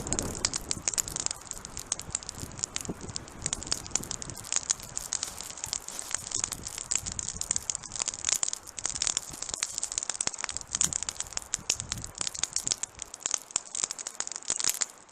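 Wood campfire crackling, with many irregular snaps and pops.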